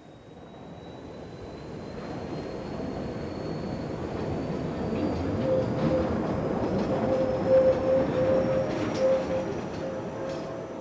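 Electric rack-railway train running along the track, its rumble swelling and then easing off. Over the rumble are a steady tone that pulses in the middle and a faint high whine that rises slowly in pitch, with a couple of sharp clicks near the end.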